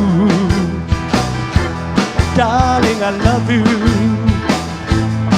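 Live band playing upbeat rock-and-roll music, with a steady drum beat and bass under a wavering melodic line.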